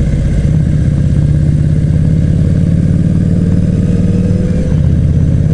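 Harley-Davidson Night Rod Special's liquid-cooled V-twin engine running at a steady pitch while riding, with an even hiss over it.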